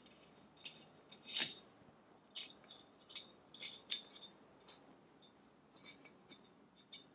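Faint rustling and small plastic clicks of hands wrapping a data logger's RPM pickup wire around a go-kart engine's spark plug lead, with one louder brush of cable about one and a half seconds in.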